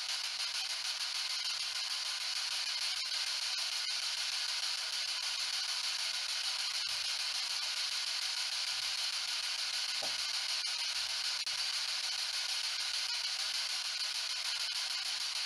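Ghost box radio scanning through stations, giving a steady hiss of static broken by faint clicks.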